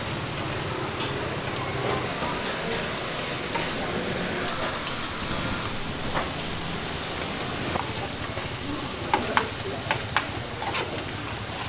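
Busy street-food stall din with scattered clicks of metal tongs on frying pans. About nine seconds in, a loud, steady, high-pitched whistle sounds for about two seconds and then stops.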